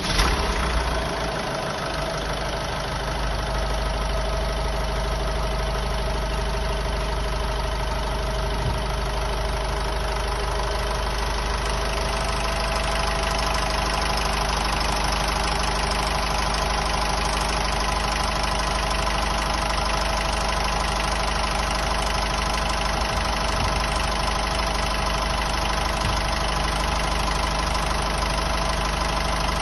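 Honda Civic's 1.6 i-DTEC four-cylinder turbodiesel idling steadily just after starting. About twelve seconds in, the abnormal noise the owner hears on warm-weather starts sets in; he reports that it stops soon after driving off.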